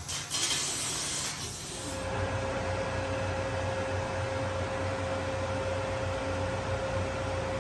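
Hiss for about two seconds, then a steady machinery hum with a constant mid-pitched whine and low rumble from the running fiber laser cutting machine and its equipment.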